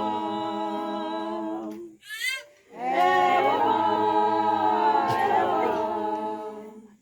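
Women's choir singing a hymn unaccompanied, holding a long chord. About two seconds in there is a short break with a brief high sliding sound, then a second long held chord that fades away near the end.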